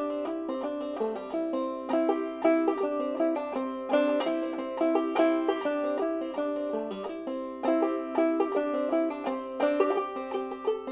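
Background instrumental music: a plucked string instrument picking quick, bright notes in a steady run.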